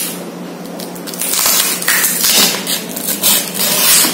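Brown paper parcel wrapping being torn open and crumpled by hand: a run of irregular crackling rustles that starts about a second in.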